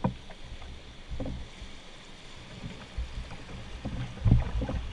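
A canoe being poled downstream through moving river water, with the steady rush of the current and rapids around it. Low thuds against the boat come in the last two seconds, the loudest a little after four seconds in.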